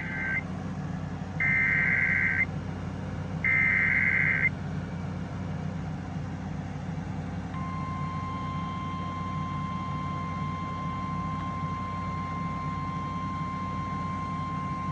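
Emergency Alert System SAME header data bursts: three one-second warbling digital squawks a second apart, the first already under way. After a pause of about three seconds the steady 1050 Hz NOAA Weather Radio attention tone starts about seven and a half seconds in and holds unbroken. A steady low hum runs underneath.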